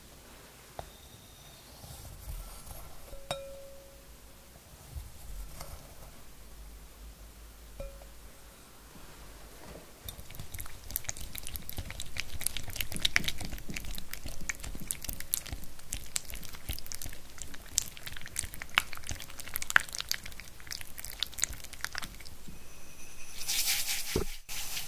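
Whisk beating egg yolks in a glass bowl. After a few faint taps in the quiet first ten seconds, the wires click and tap rapidly against the glass. Near the end comes a short hiss of granulated sugar being poured into the bowl.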